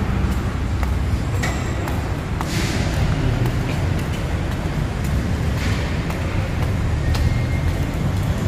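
Steady low rumble through an underground car park, with two brief hissing swells and a few faint clicks.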